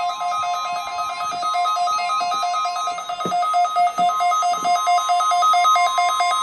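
Emergency Alert System attention tones announcing a severe weather alert. A steady single alarm tone is held under a fast beep that alternates between a lower and a higher note, about five times a second.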